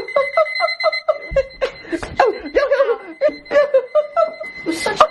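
Laughter in short repeated pulses over the steady high-pitched tone of many alarm clocks going off at once.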